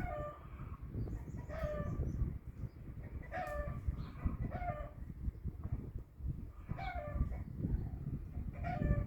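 Chickens calling, short pitched calls repeated every second or two, over a steady low rumbling noise.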